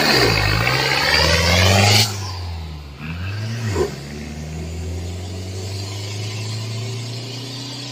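Engine of a built-up 1980 Toyota RN30 Hilux off-road truck revving hard as the truck accelerates away, its pitch climbing. About two seconds in the sound drops sharply, then the engine note rises and dips once more and settles into a steadier drone as the truck drives off.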